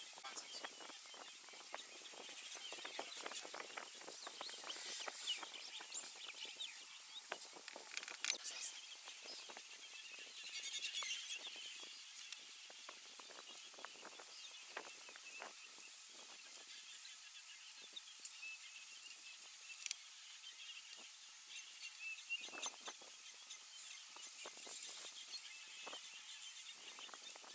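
Quiet savanna ambience: birds chirping faintly, a steady thin high-pitched whine, and scattered soft clicks and rustles.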